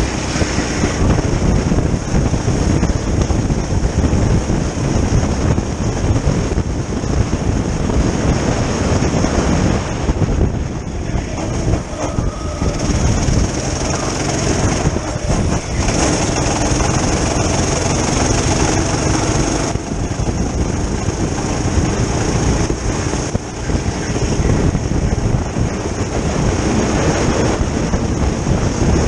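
Go-kart engine running at speed, heard from the driver's seat with heavy wind rush and tyre rumble over it; the engine note rises and falls, dipping briefly about ten seconds in and again around twenty-three seconds.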